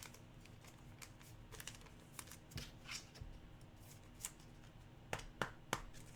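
2019-20 Mosaic basketball trading cards being handled and flipped through one by one: faint scattered clicks and rustles of card stock, a few sharper ones near the end.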